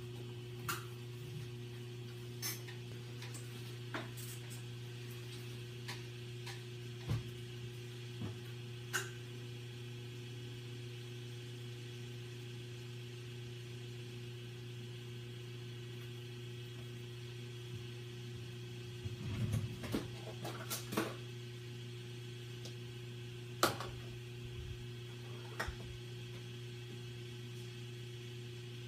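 A steady low electrical hum from kitchen appliances, with scattered light knocks and clicks of items being handled on the counter, a brief cluster of them about two-thirds of the way through.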